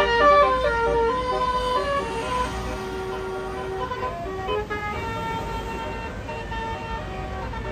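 A tour bus's Basuri telolet horn playing a tune of held notes that step from pitch to pitch, loudest in the first second or so, over a low engine rumble.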